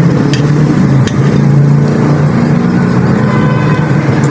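A steady, loud, low engine-like hum running without a break.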